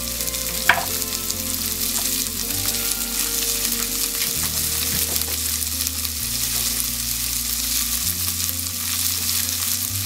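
Chopped vegetables (carrot, red onion, capsicum, peas and green beans) sizzling steadily in hot olive oil in a non-stick frying pan, with a single sharp pop about a second in.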